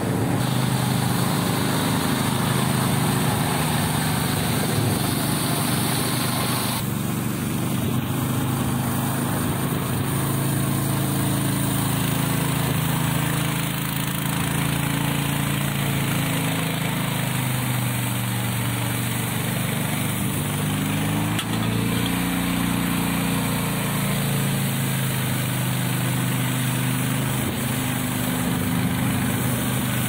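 Remote-control orchard sprayer running steadily: an engine hum under a continuous airy rush as it blows out pesticide mist.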